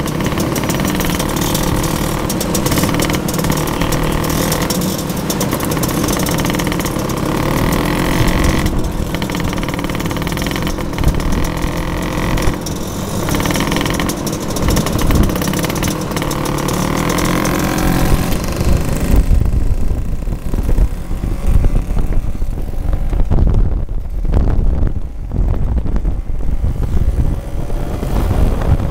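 Several motor scooter engines running in a slow-moving convoy, their pitch rising and falling with the throttle. From about two-thirds of the way through, wind buffeting on the microphone rumbles over the engines.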